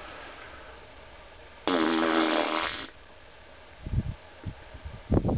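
A loud, low, buzzing fart lasting just over a second, starting a little under two seconds in. It is made on purpose to test whether the deer will hear it. A few soft knocks follow near the end.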